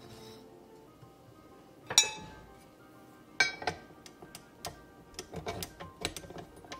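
Clinks and taps on a stainless steel stand-mixer bowl as it is handled: a sharp loud one about two seconds in, another a second and a half later, then a run of lighter ticks, over soft background music.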